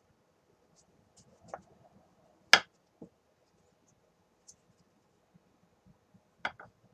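A few sharp wooden knocks and softer taps from a clay-wrapped broomstick handle being rolled and handled on a wooden work board. The loudest knock comes about two and a half seconds in, with two more close together near the end.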